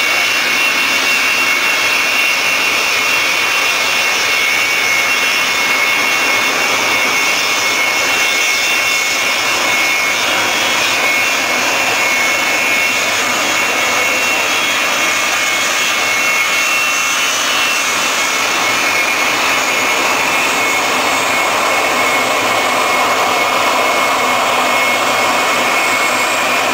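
F-16 fighter's jet engine idling: a steady high-pitched whine over a constant rush of exhaust noise.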